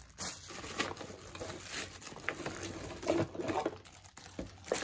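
Clear plastic packaging crinkling and rustling in irregular bursts, with small clicks and knocks, as the NutriBullet Baby blender's plastic-bagged motor base is lifted out of its cardboard box.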